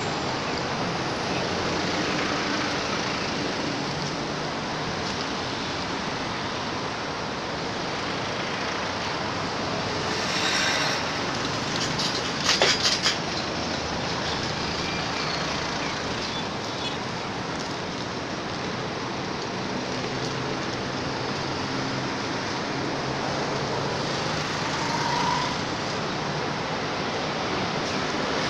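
Steady outdoor background noise, an even rushing hiss and rumble, with a short cluster of sharp clicks about twelve seconds in.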